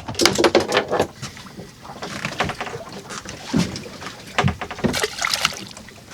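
Water slapping and splashing against the hull of a small drifting boat, with irregular knocks and clatter.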